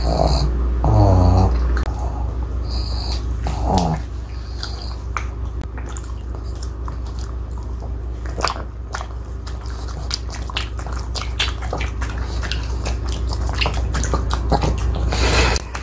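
A pug chewing and smacking on a piece of sticky, chewy egg tart made with glutinous rice flour and sweet potato, with many irregular wet clicks of jaws and tongue; it gulped the piece too fast and takes a long time to chew it. A brief wavering voice-like sound about a second in.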